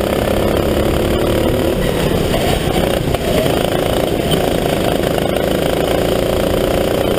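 Sodi RT8 rental kart's engine running hard, heard onboard, its pitch rising and falling with the throttle through the corners, with a short dip about three seconds in.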